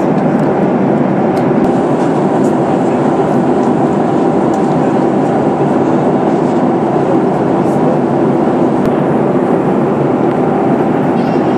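Steady cabin noise of a Boeing 737-800 in flight, heard inside the cabin: the even rush of airflow and engine sound, unchanging throughout.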